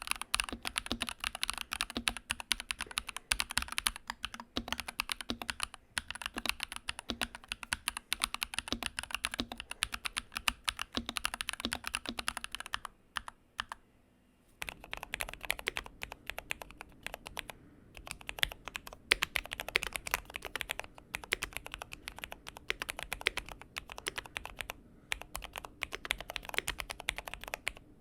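Fast typing on mechanical keyboards: a run of key clacks, a short pause about 13 seconds in, then typing on a second board with a different background sound.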